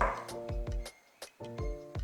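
Background music with a steady beat: kick drum and percussion about four hits a second under held synth chords, a cymbal splash at the start and a short gap about a second in.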